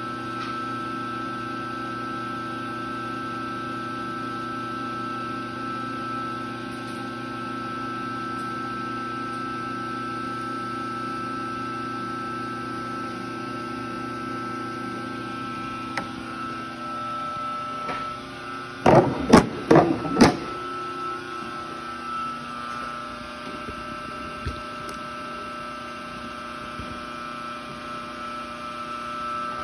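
Taylor C723 soft-serve machine running with a steady hum and a high whining tone. A short clatter of four or five loud knocks comes about two-thirds of the way through, after which the hum goes on with its low note changed.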